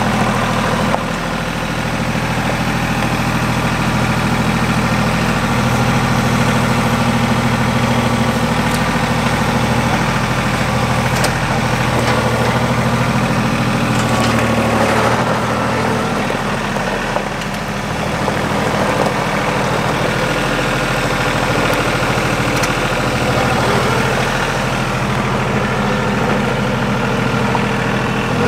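RK compact tractor's diesel engine running steadily as its front-loader grapple picks up and carries a saw log.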